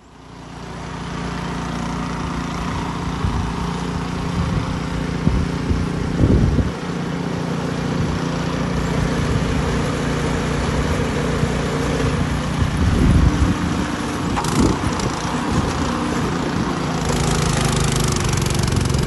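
An engine running steadily, with a few brief louder surges.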